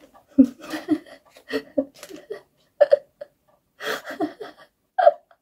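A person's voice in short, broken sounds with no clear words, such as murmurs, small laughs and breaths.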